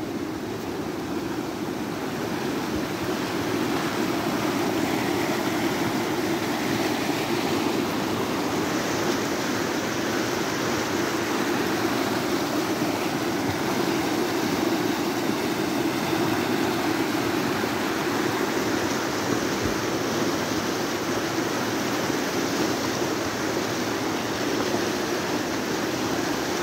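Steady rush of muddy floodwater running down a rocky channel, a constant roar of flowing water that swells slightly after the first few seconds.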